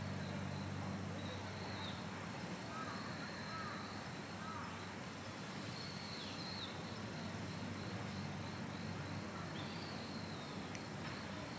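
Outdoor ambience: a steady low hum under a haze of background noise, with a few faint, scattered high chirps.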